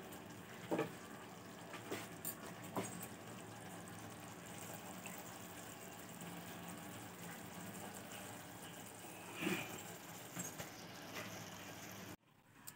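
Quiet kitchen room tone with a faint steady hiss, a few light clicks of a steel spoon against a bowl and pan in the first three seconds, and a brief louder noise about nine and a half seconds in.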